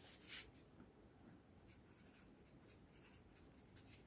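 Faint scratching and light taps of a felt-tip marker writing on paper, in short separate strokes, with a slightly louder stroke just at the start.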